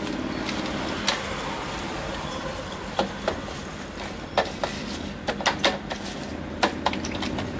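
Hands kneading and slapping marinated pig face masks in a stainless steel basin, giving scattered wet slaps and clicks that come more often in the second half, over a steady background hum.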